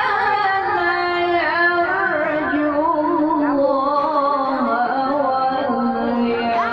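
A qori's voice reciting the Quran in a melodic tilawah style, holding long, ornamented notes that step slowly lower in pitch.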